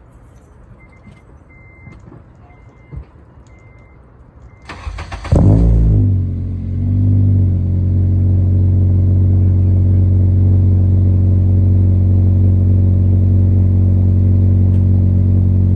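A car engine is started: a short burst of cranking about five seconds in, then it catches with a quick rev flare and settles into a steady idle. Before that, a string of short high beeps, like a car's warning chime.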